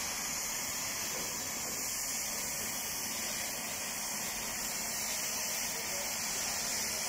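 Oxy-acetylene torch flame hissing steadily against a steel pipe, a continuous even hiss with no breaks.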